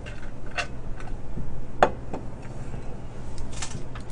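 A man drinking from a stainless steel tumbler and setting it down, heard as a few small clicks and knocks, the loudest just under two seconds in.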